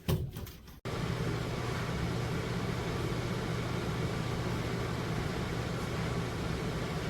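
A short knock, then about a second in the steady whir and low hum of an Emeril Lagasse 26 QT air fryer toaster oven's convection fan running, starting abruptly.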